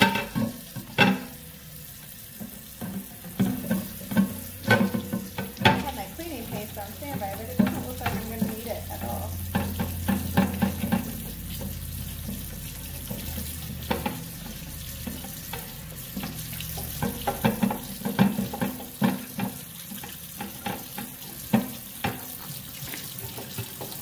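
Kitchen tap running onto a glass microwave turntable plate in a stainless steel sink while it is scrubbed with a Norwex Envirosponge, with frequent sharp clicks and knocks as the plate is handled.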